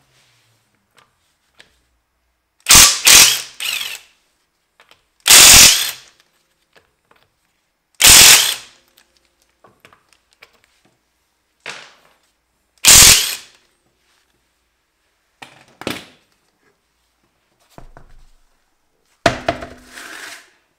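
Impact wrench loosening the rear wheel bolts in short hammering bursts of about half a second, four loud ones a few seconds apart with shorter, weaker bursts between. Near the end a few knocks as the wheel is taken off.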